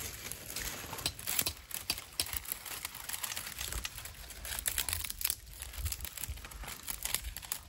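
Bundle of small dry twigs being snapped and broken by hand into kindling: an irregular run of sharp little cracks and crackles with rustling of the twigs.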